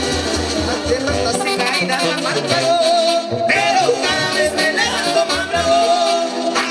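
Latin dance music with singing, a pulsing bass beat under a wavering melody line.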